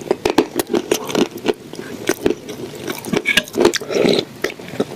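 Close-miked eating: a person chewing and biting food, with rapid irregular crunchy clicks and wet mouth sounds.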